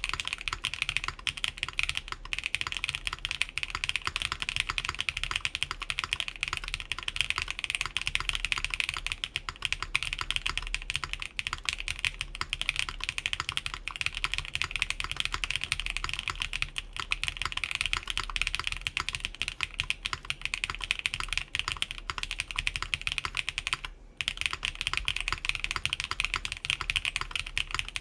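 Fast continuous typing on an Atelier Magnus Slate Zero mechanical keyboard: lubed Keygeek Blue Cheese v2 switches on a full aluminium plate under DSA keycaps, gasket-mounted with plate and case foam fitted. A rapid stream of keystroke clicks, broken by a brief pause about 24 seconds in.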